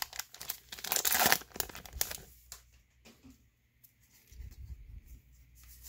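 Foil wrapper of a baseball card pack crinkling as it is torn and pulled open, loudest in the first two seconds, then a few faint rustles and clicks as the cards are slid out.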